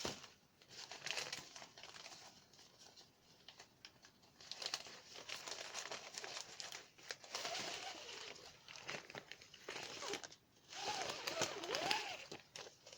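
Plastic wrapping crinkling and rustling in irregular bursts as it is pulled off a new fishing rod, with a few short squeaks of plastic rubbing near the end.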